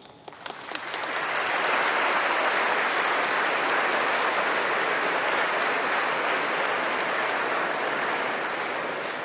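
A large audience applauding: scattered claps at first, swelling into full, steady applause within the first two seconds and starting to die away near the end.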